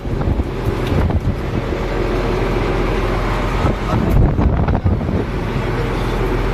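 Fishing trawler's engine running steadily, with wind buffeting the microphone in gusts, strongest about four seconds in.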